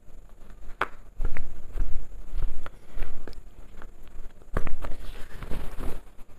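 Hand-sewing on a coat's collar: needle and thread drawn through the cloth and the fabric handled, heard as a run of light taps and scratchy rustles, busiest about a second in and again near the end.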